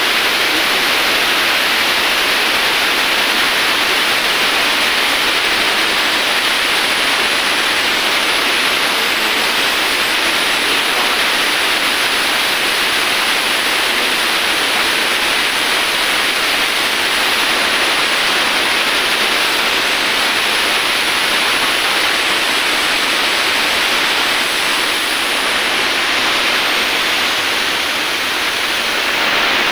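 A steady, even rushing hiss with no rhythm or pitch.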